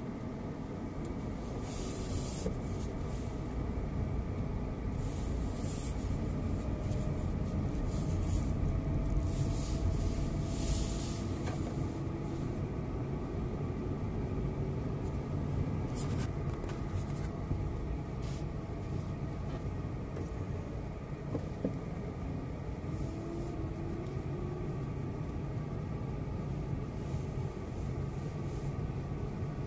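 Car driving: a steady low rumble of engine and road noise, with faint engine tones slowly rising and falling. Short spells of hiss come in the first ten seconds or so.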